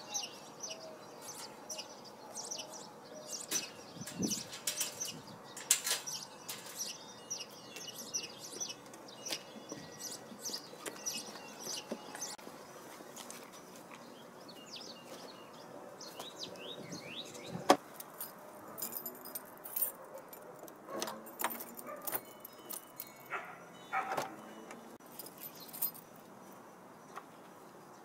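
Small birds chirping throughout, over light clinks, rattles and knocks from gear being carried and handled, with one sharp knock about eighteen seconds in.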